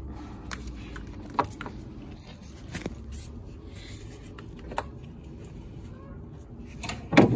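Scattered light clicks and knocks of hand tools and parts being handled on the engine, with a louder clatter near the end, over a steady low hum.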